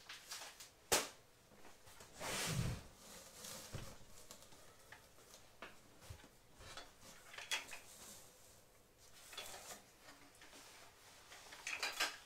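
Handling noise as a large in-wall subwoofer is lifted out of its foam-lined cardboard box: a sharp click about a second in, a longer scraping rub of foam and cardboard around two to three seconds, then scattered light knocks and rustles, with a quick run of clicks near the end.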